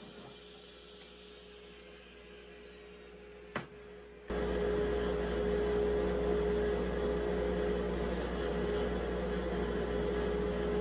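Faint steady shop hum with a single click, then, about four seconds in, an abrupt jump to a woodshop machine running loudly and steadily: a whirring motor noise with a steady pitched tone.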